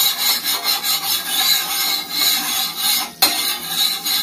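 A hot cast-iron dosa tawa being wiped back and forth after water is sprinkled on it: a continuous rasping hiss that swells and eases with each stroke. It breaks off briefly about three seconds in, then starts again sharply.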